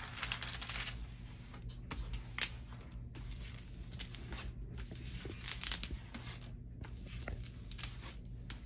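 Hands and a smoothing tool sweeping across the clear plastic film over a rolled diamond painting canvas, making a series of rustling swishes. The canvas is being flattened after unrolling.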